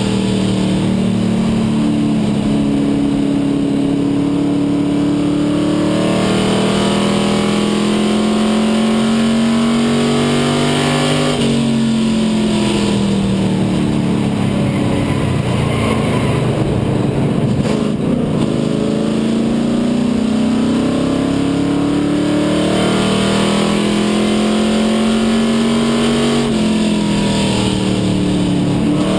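Dare Stock race car's engine at racing speed, heard from inside the cockpit. Its pitch climbs and falls as the car laps, dropping sharply three times as the driver lifts and climbing steadily between.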